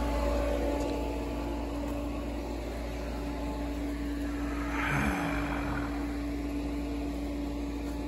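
Pool filter pump motor running with a steady hum and a constant tone. About five seconds in, a brief whoosh with a falling pitch passes over it.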